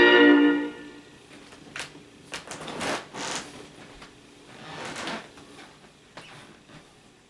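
A held closing chord of music dies away within the first second, then faint scattered clicks and two brief rustling noises follow, about three and five seconds in.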